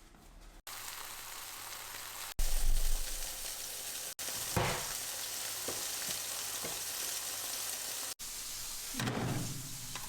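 Steady sizzling hiss, like food frying, in several short clips joined by abrupt cuts. It is loudest about two and a half seconds in, with a few brief knocks around the middle and near the end.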